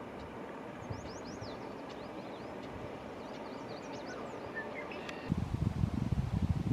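Strong wind over outdoor ambience, turning into loud gusts buffeting the microphone about five seconds in. A few faint, short high bird chirps come through about a second in and again around three seconds.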